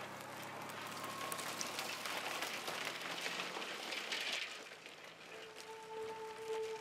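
Mitsubishi Shogun 4x4 with a 3.0 V6 driving off across a dry stubble field: a crackling hiss of stubble under the tyres over a low engine hum that fades as it pulls away. About five seconds in, a steady held music tone comes in.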